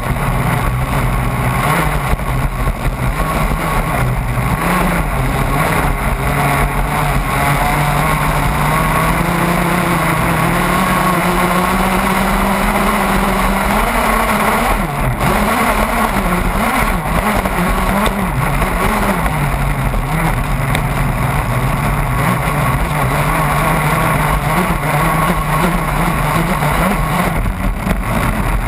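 HPR CT04 radio-controlled offshore catamaran's motor running at speed under a steady rush of spray and water along the hull. The motor's pitch climbs gradually over the first half, wavers and breaks up for a few seconds as the boat crosses chop, then settles lower and steady.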